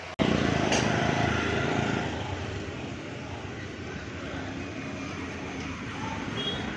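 Street traffic noise from auto-rickshaw and motor scooter engines, a steady rumbling hum that cuts in suddenly and is loudest for the first two seconds.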